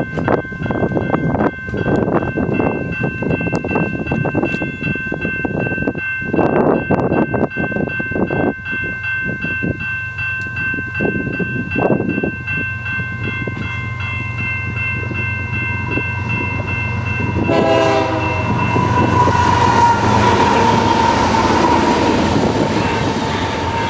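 Freight locomotive air horn blowing a long, steady chord as the train approaches, with wind gusting on the microphone early on. The horn stops about 17 seconds in, and the locomotive's engine and the rumble and clatter of the passing freight cars take over.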